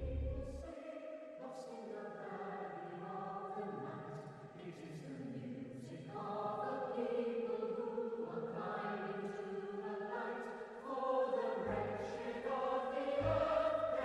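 Slow choral film-score music: a choir sings long, soft held notes. A loud low rumble fades out in the first second.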